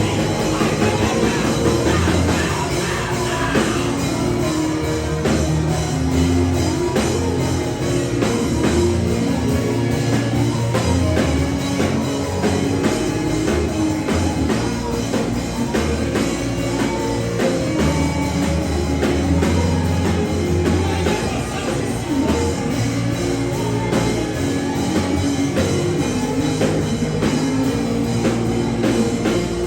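Band music with drum kit and guitar playing a steady beat.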